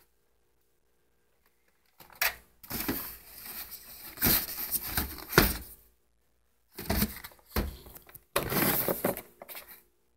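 Boxed action figures in cardboard-and-plastic window packaging being shuffled and slid against one another inside a cardboard shipping box: scraping and rustling in two spells, with a few sharp knocks.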